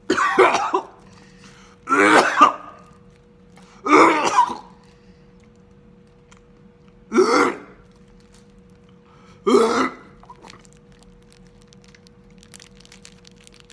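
A man coughing and clearing his throat: five separate bursts, the first three about two seconds apart, then two more after a longer pause.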